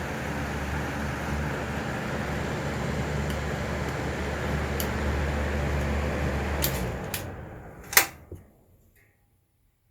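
Mitsubishi EFG-30MSB pressure exhaust fan running steadily with a low motor hum and the rush of air through its blades, then, about seven seconds in, a couple of clicks and the fan winding down and falling quiet. A sharp, loud click comes about eight seconds in as it dies away.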